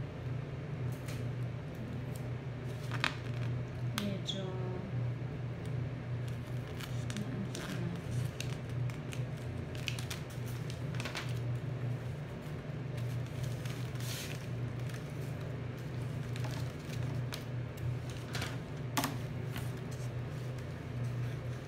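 Paper and wrapping paper being handled and cut with scissors: scattered rustles, crinkles and snips over a steady low hum.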